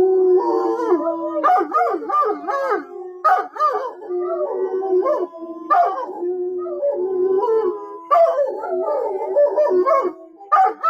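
Several dogs howling together: long held howls at different pitches overlap, broken by short yelping yips that rise and fall.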